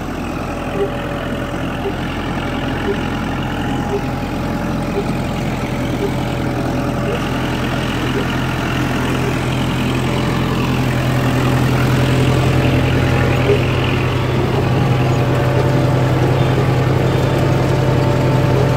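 Kubota 45 hp tractor's diesel engine running steadily, its hum growing gradually louder through the second half.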